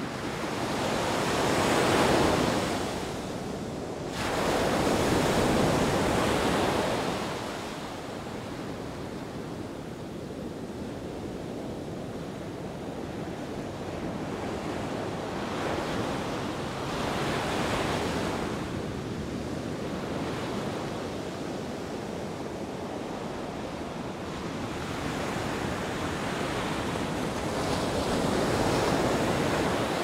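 Mediterranean surf breaking and washing up a sandy, rocky beach: waves swell and fall away every several seconds, with the two loudest surges in the first seven seconds and another near the end.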